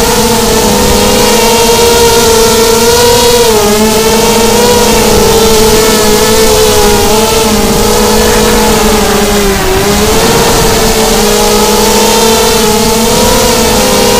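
FPV racing miniquad's brushless motors and propellers whining loudly as it flies, the buzzing pitch wavering up and down with the throttle and dipping briefly about ten seconds in.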